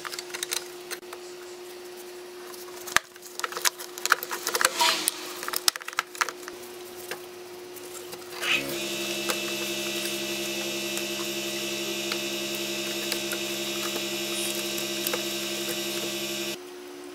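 Clicks, knocks and scraping of parts being handled in a car's engine bay. About halfway through, a steady machine hum starts abruptly and cuts off suddenly near the end.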